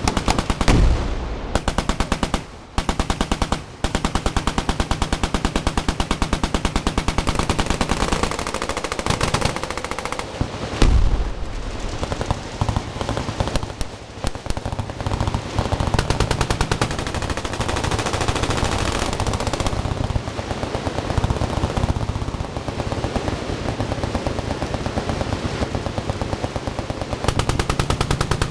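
Sustained full-auto machine-gun fire from many guns at once, a continuous rattle of overlapping bursts with brief lulls near the start and a louder boom about eleven seconds in.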